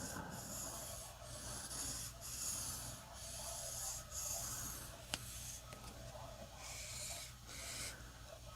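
Morakniv blade being stroked along a sharpening whetstone: faint scraping strokes repeating about once a second, with one sharp click about five seconds in.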